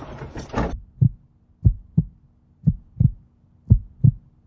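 Heartbeat sound effect: low double thumps (lub-dub) about once a second over a faint steady hum. It starts about a second in, after a moment of car-cabin noise that cuts off suddenly.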